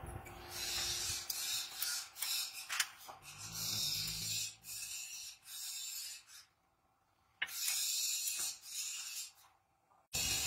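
Metal brake pad clips scraping and clicking against a caliper bracket as they are pressed into place by hand, in uneven scratchy bursts with a few sharp clicks and short pauses.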